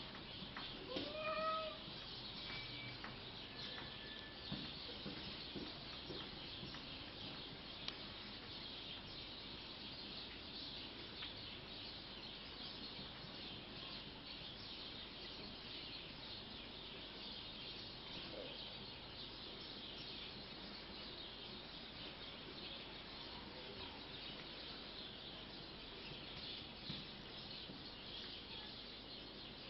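A cat meowing once, a short curved call about a second in, over a steady high-pitched hiss.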